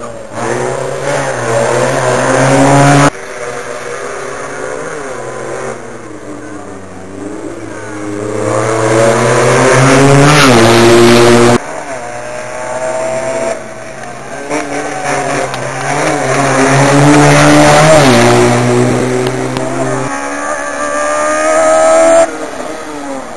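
Rally cars passing one after another at speed, their engines revving high and dropping at each gear change, getting louder as each car comes close. The sound changes abruptly from one car to the next.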